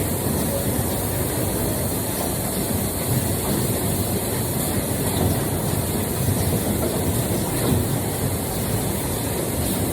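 Steady rumbling noise with a few faint clicks, like a vehicle running.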